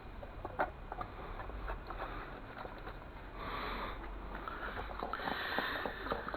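Irregular clicks, knocks and scraping from working a plaster of Paris, sand and cement mix in a container, with longer scraping, pouring-like hisses about three and a half and five seconds in.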